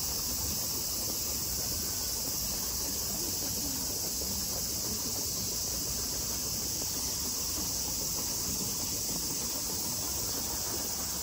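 Cicadas droning in the trees, a steady high-pitched hiss with no breaks.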